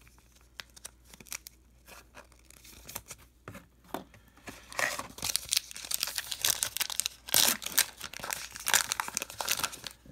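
A baseball card pack wrapper being torn open and crinkled by hand, with a few light clicks in the first half, then loud crackling from about halfway through.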